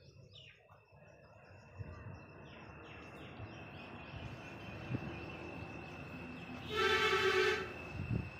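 Cattle shelter ambience: birds chirping, a steady high whine and a few low thumps. About seven seconds in comes a loud, high-pitched call lasting just under a second.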